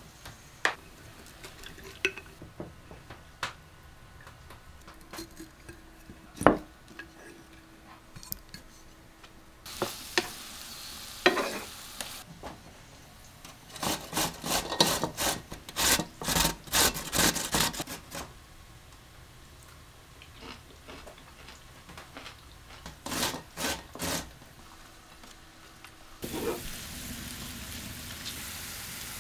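Kitchen sounds in sequence: a glass jar of fermented cucumbers handled and its lid taken off, with scattered light clicks. Then pickled cucumbers rasped on a metal box grater in quick strokes, about three or four a second. Near the end, grated carrots and onion fry in a pan with a steady sizzle as they are stirred.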